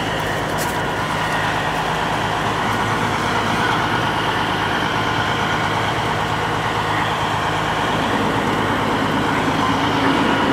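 Fire truck engine running steadily with a low hum, which shifts up in pitch about eight seconds in.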